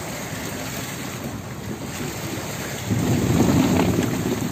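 Rumbling, splashing wash of seawater against the boat and the fishing net as the crew hauls the net in by hand, getting louder about three seconds in.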